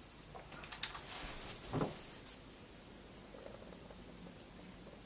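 A few light key or button clicks on a laptop, then a short soft knock about two seconds in, followed by faint room tone while the MacBook Pro restarts.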